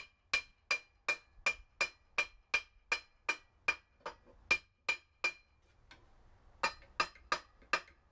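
Repeated hammer strikes, about three a second, banging a Mazda 12A rotary engine's middle housing to knock it loose; each blow rings briefly. The blows pause about five and a half seconds in, then four more follow.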